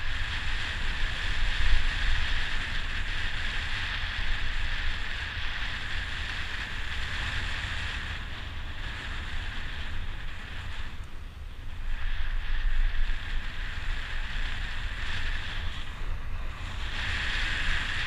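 Wind buffeting the microphone of a camera on a bicycle moving at speed downhill, a constant low rumble. Over it runs a steady higher hiss that drops away briefly twice, about eleven and sixteen seconds in.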